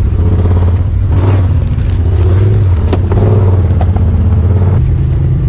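Honda Talon 1000X-4 side-by-side's parallel-twin engine running at low revs while it crawls a tight trail, the pitch rising and falling slightly, with occasional sharp knocks and clicks over the engine.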